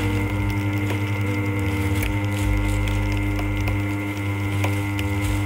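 Continuous band sealer running as plastic bags of soybeans pass through to be sealed: a steady motor hum and drone, with a few faint clicks.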